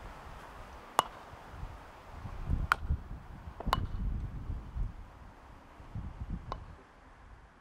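Four sharp, ringing clicks of croquet balls being struck with mallets: one about a second in, two more close together near the middle, and a fainter one near the end, over a low rumble.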